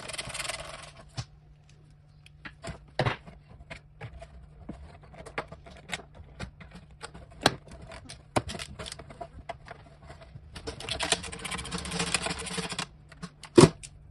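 Hands working on a lithium battery's cables and plastic lid: scattered clicks and light knocks, with two spells of rustling, one at the start and one a couple of seconds before the end, and a sharper knock near the end. A faint steady hum runs underneath.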